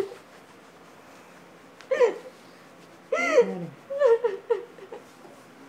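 A woman sobbing: short, high-pitched sobs in quick succession, starting about two seconds in.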